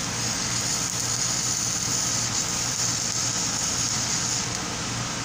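Stick welding arc crackling and hissing steadily, cutting out near the end when the arc is broken, over a steady low hum.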